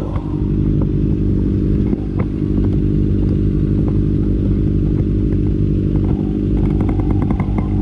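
Kawasaki ZX25R's 250 cc inline-four engine running at a steady speed, its note holding even with no revving.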